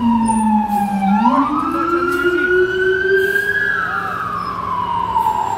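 Emergency vehicle siren in a slow wail: the pitch falls, rises again from about a second in, then falls once more.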